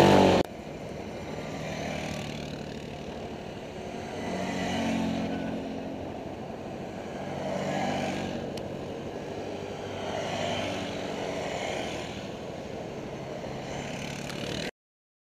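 ATV (quad bike) engines. One passes close and loud for the first half-second; after a sudden drop, fainter quad engines swell and fade several times as they ride by, and the sound cuts off abruptly near the end.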